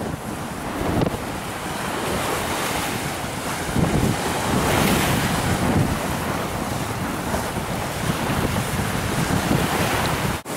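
Ocean surf washing onto a beach, a steady noise that swells and eases, with wind buffeting the microphone.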